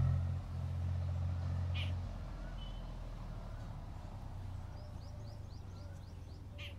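Outdoor ambience: a low rumble that drops away about two seconds in, with birds chirping, including a quick run of short rising chirps near the end.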